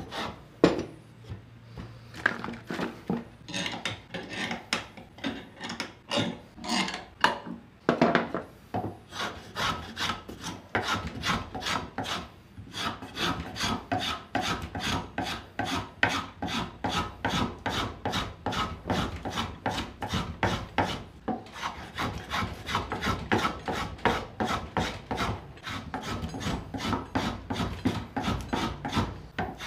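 Hand plane shaving the corner of a cambará wood table leg in quick back-and-forth strokes, cutting a chamfer. The strokes are spaced out for the first several seconds, then come fast and even, several a second.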